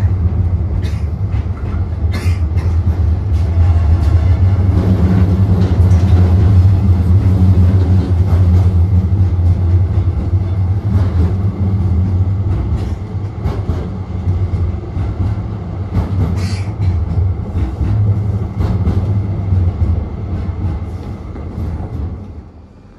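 Tram running on its rails, heard from inside the car: a loud, steady low rumble with scattered clicks and knocks from wheels and track. The noise drops away sharply near the end.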